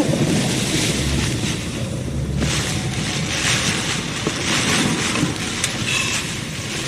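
Torrential rain pouring steadily in a severe thunderstorm, with wind, and a brief low rumble about a second in.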